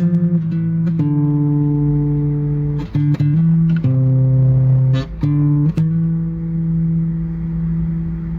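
Background music played on guitar: plucked notes and chords held for a second or so each, with a bass line.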